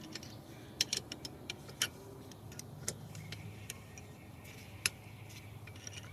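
Irregular light metallic clicks and ticks of a wrench working a pit bike's rear chain adjuster and axle hardware, over a faint low hum.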